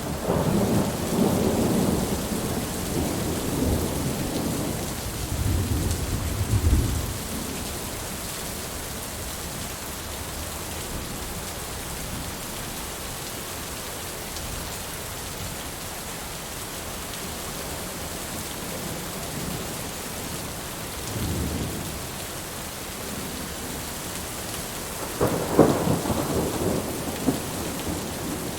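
Heavy rain falling steadily with thunder: rolling rumbles through the first several seconds, a short low rumble about two-thirds of the way through, and a sharper, louder thunderclap near the end.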